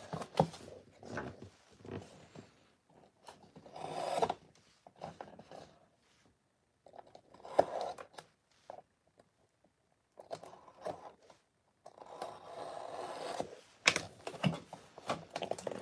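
Shrink-wrapped cardboard boxes being handled while a blade slits and scrapes along the plastic wrap. The sound comes as irregular scratchy, rubbing bursts with a few clicks and short pauses between them.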